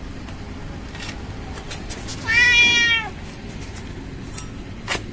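A domestic cat meows once, a little over two seconds in; the call lasts under a second and falls in pitch at its end.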